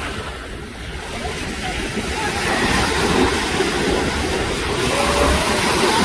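Shallow sea surf washing in and breaking around people standing in the water, a steady rushing wash that grows louder after about a second.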